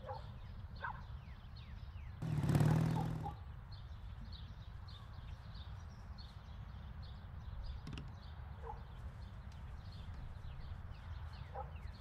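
Outdoor ambience: many small birds chirping over a steady low hum. About two seconds in, one loud, buzzy animal call lasts about a second.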